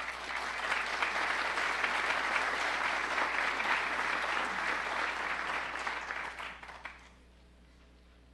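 Audience applauding, a steady spread of clapping that dies away near the end.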